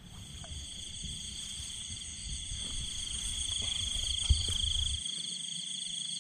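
Steady, pulsing chorus of calling insects and frogs. A low rumble on the microphone stops about five seconds in, and there is a single knock just before it.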